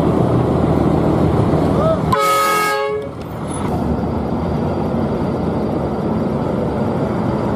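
A horn sounds once for just under a second, a chord of several tones, about two seconds in, over a steady noisy background.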